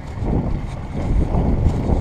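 1978 Yamaha YZ80 two-stroke single-cylinder dirt bike engine running at low revs while the bike rides slowly over rough ground, with wind buffeting the microphone. The sound grows louder over the first second.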